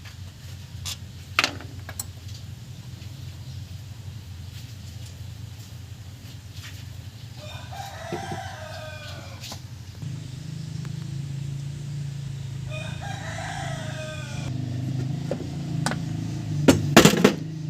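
A rooster crows twice, each crow about two seconds long, about eight and thirteen seconds in, over a low steady hum. A few sharp knocks come near the end.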